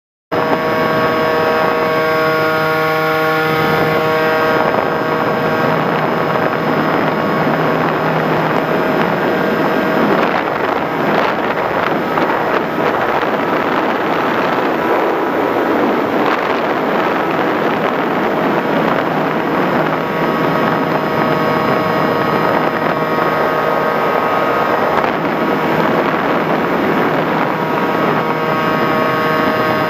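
An FPV Raptor model plane's electric motor and propeller running in flight, a steady whine over the rush of wind across the onboard camera's microphone. The sound starts suddenly just after the start. The whine sinks under the wind noise through the middle stretch and comes back clearly for the last third.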